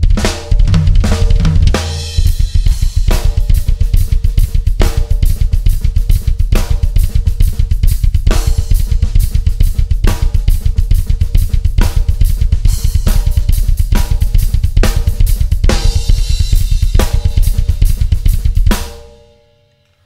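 Drum kit played as a free groove over a fast, unbroken double bass drum ostinato of Swiss Army triplets played with the feet. Strong accents with cymbal crashes land about every one and a half to two seconds. The playing stops near the end.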